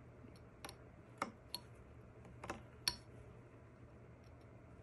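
Carving knife cutting into a wooden hiking stick: a handful of faint, sharp clicks at irregular intervals, most in the first three seconds, as the blade bites into wood that is hard to carve.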